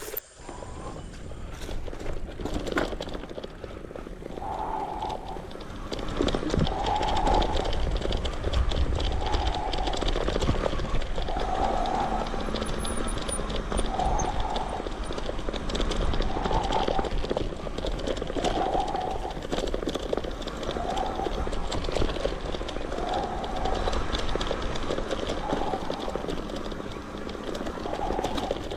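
Bicycle riding over a rough dirt trail: continuous rattling and clattering with a low rumble of wind on the microphone, and a short mid-pitched tone repeating about every two seconds.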